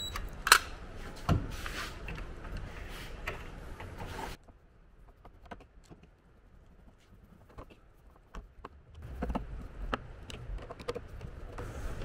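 Scattered light clicks and knocks of hands and a hand screwdriver on the plastic inside handle of an RV Lock keyless door lock as it is set against the RV door and screwed down. The sound drops abruptly to near silence about four seconds in, and faint scraping and clicks return near the end.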